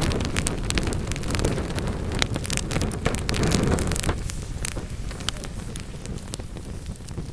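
Wood fire in a fireplace crackling, with frequent sharp pops over a low rumble of burning; the rumble is heavier in the first half and eases off later.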